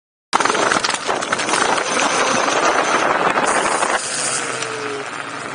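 Ride noise of a RedWheels Crosser dual-motor electric scooter on the move: knobby tyres crunching and rattling over gravel, with wind on the microphone, starting suddenly a moment in. About four seconds in, the surface turns smoother and the noise drops, leaving a faint whine falling in pitch.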